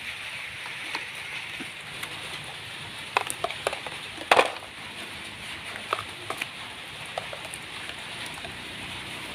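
Hard plastic toy excavator and dump truck being handled: scattered sharp clicks and knocks, a burst of them about three seconds in and the loudest just after four seconds, as lumps of mud are loaded into the truck's plastic bed. A steady hiss runs underneath.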